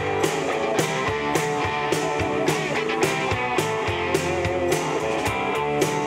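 Live rock band playing amplified electric guitars, bass guitar and drum kit, with a steady beat of a little under two drum hits a second.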